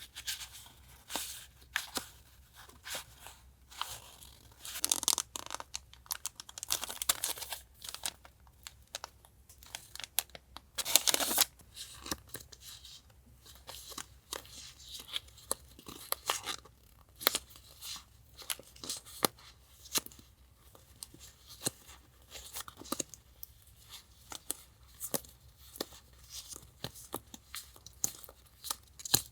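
Sticker sheets, paper and packaging handled close to the microphone: a stream of small crackles, crinkles and taps, with longer tearing-like swishes around five, seven and eleven seconds in.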